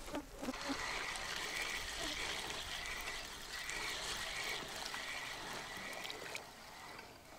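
Shallow river water trickling and flowing steadily.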